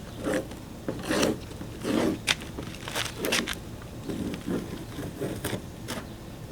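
Hands working at a car headlight: a run of short, irregular crackling scrapes, about a dozen spread over several seconds.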